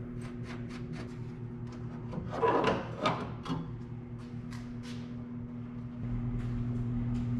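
Sheet-metal rear apron of a VW Beetle being unbolted and pulled free: scattered clicks of the nuts and tools, with a louder scraping rattle of the panel a little past two seconds in. A steady low hum runs underneath.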